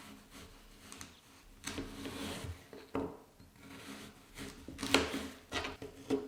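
Objects being handled: a scraping rub and several light knocks, the loudest knock about five seconds in.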